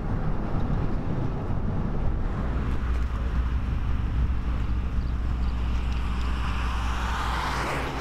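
Steady low road rumble, then a pickup truck coming along the highway, its tyre hiss building toward the end as it nears.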